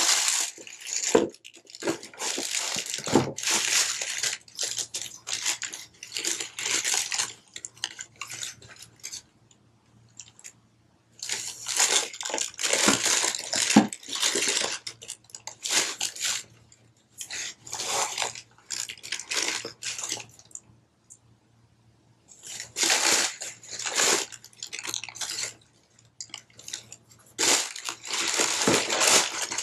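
Tissue paper rustling and crinkling in irregular bursts, with short pauses, as sneakers are unwrapped and handled in a cardboard shoebox.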